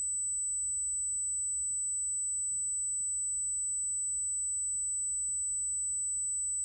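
Loud, steady high-pitched electronic ringing on the audio feed, an unwanted tone from a fault in the recording setup, with faint paired clicks about every two seconds.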